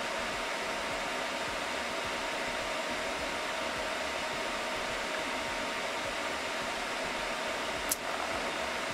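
Rack-mounted servers' cooling fans running, a steady whooshing whir with a faint hum in it. A single short click sounds near the end.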